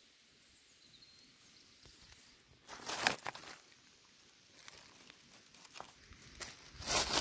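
Dry leaf litter and twigs rustling and crackling in two short bursts, about three seconds in and again near the end, as the forest floor is stepped on and a hand reaches into it at a porcini mushroom. There are a few faint crackles in between.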